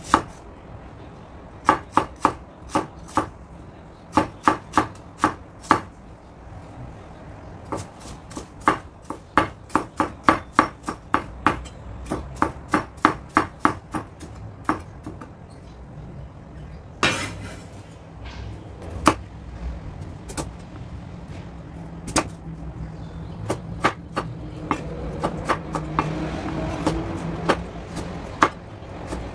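Cleaver chopping onion, then carrots, on an end-grain wooden cutting board: runs of sharp knocks about two to three a second, broken by pauses. There is one short rushing noise about halfway, and the knocks come more sparsely near the end.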